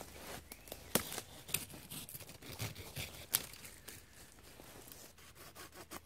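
Folding pruning saw cutting through a finger-thick hazel stem: irregular scratchy strokes with a few sharp clicks.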